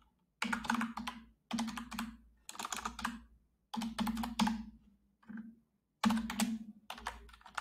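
Computer keyboard typing in about six short bursts of keystrokes, with brief pauses between them.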